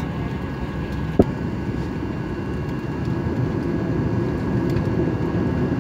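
Steady low rumble of a Boeing 737-800's CFM56 engines and airframe heard from inside the passenger cabin, growing slightly louder in the second half. A single short thump comes about a second in.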